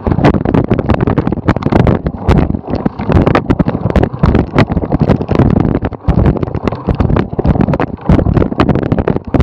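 Wind buffeting the camera microphone as a cyclocross bike rides fast over bumpy grass, with a constant stream of knocks and rattles from the bike jolting over the ground.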